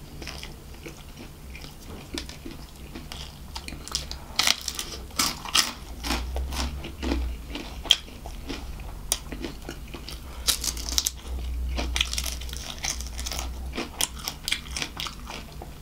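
A person chewing KFC crispy fried chicken: the crunchy breaded coating cracks in clusters of sharp crunches about four to six seconds in, again around ten to thirteen seconds and near the end, with softer chewing between.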